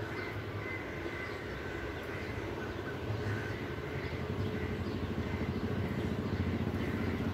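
A steady low rumble that grows a little louder in the second half, with faint high thin tones above it.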